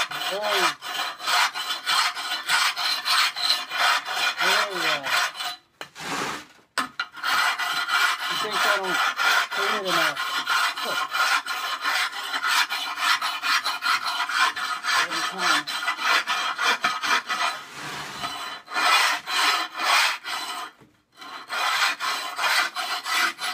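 Hand-held abrasive block scrubbed in rapid back-and-forth strokes across a ceramic kiln shelf, rasping the fired-on crust off its surface. The scraping breaks off briefly twice, around six seconds in and near the end.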